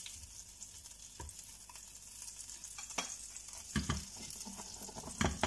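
Butter melting and sizzling in a hot frying pan, a steady hiss, broken by a few sharp knocks of the spatula and pan, the loudest near the end.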